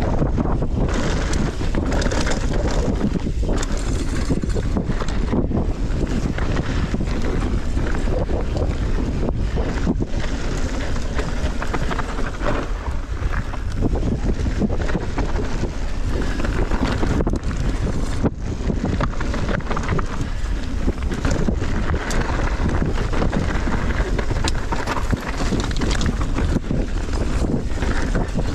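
Wind rushing over the microphone of a camera carried on a moving mountain bike, with steady low rumble and knocks from the bike rolling over the trail.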